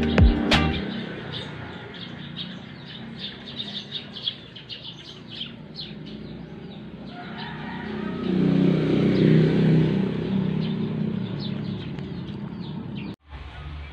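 Outdoor ambience of small birds chirping over and over. A motor vehicle passes about halfway through: its low engine sound swells, then fades.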